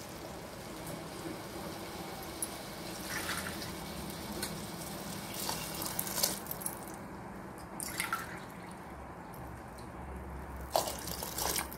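Water poured in a stream into a pressure cooker full of soaked basmati rice and sweet corn, splashing and trickling, with a few brief louder splashes.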